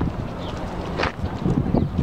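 Wind buffeting the microphone with a gusty low rumble, mixed with scattered short clicks and knocks.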